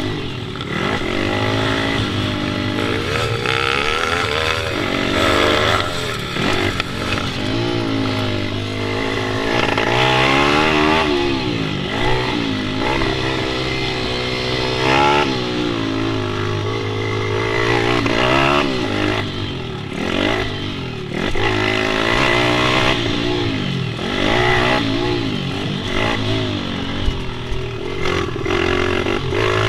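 Pit bike engine revving hard and easing off over and over, its pitch climbing and dropping many times as it is ridden.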